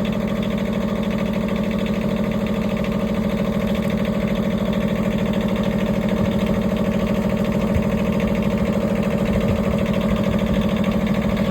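Wood-Mizer LT15 Wide portable sawmill's engine running steadily at an even speed.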